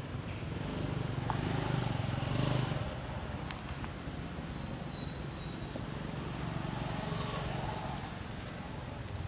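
Low hum of a motor vehicle running, swelling about one to three seconds in and then easing off. A thin high whistle is heard briefly around the middle.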